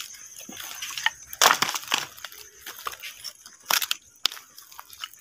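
Footsteps crunching through dry undergrowth and rubble: irregular crunches and snaps, the loudest about a second and a half in and again near four seconds in.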